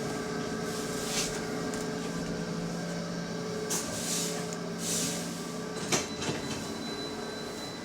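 Bus running, heard from inside the passenger cabin: a steady drone and whine, with several short hisses and a sharp clunk about six seconds in, then a thin high tone.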